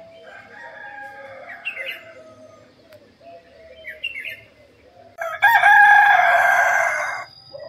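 Birds chirping and calling, then a rooster crows loudly, one long crow of about two seconds starting about five seconds in.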